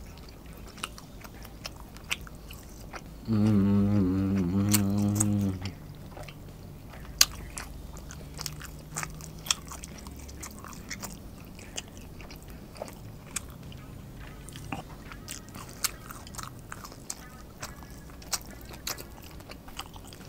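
Close-miked chewing of tender grilled steak, with wet mouth clicks and smacks throughout. About three seconds in, a loud, low hummed vocal sound from the eater lasts about two seconds.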